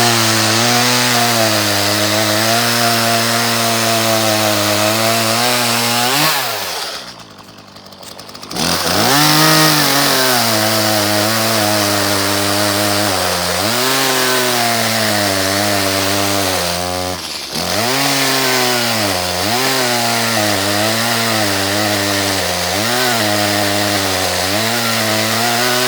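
Ported Echo CS-310 two-stroke chainsaw running at full throttle through a log on a freshly sharpened chain, its pitch sagging and recovering as it loads in the cut. About six seconds in the throttle is let off to idle for about two seconds, then it revs back up. It falls away again at the very end.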